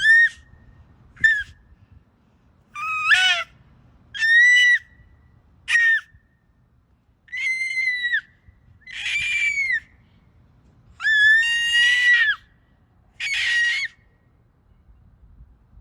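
A young child squealing, about nine short high-pitched squeals in a row with brief pauses between them.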